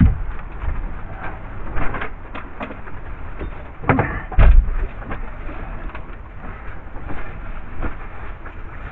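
Scattered knocks and bumps of work inside a gutted boat hull: footsteps on the floor, with boards and cables being handled. A heavy thump comes about four and a half seconds in.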